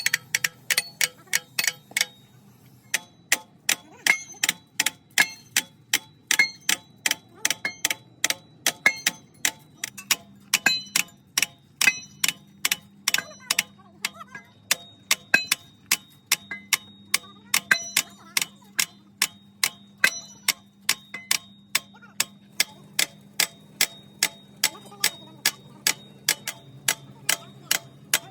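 Metal being struck repeatedly with a hammer: a steady run of sharp blows, about two or three a second, each ringing briefly.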